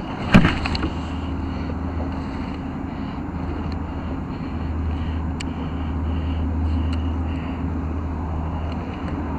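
Low, steady engine drone of a motorboat on the water, growing louder in the second half, with one sharp knock about half a second in.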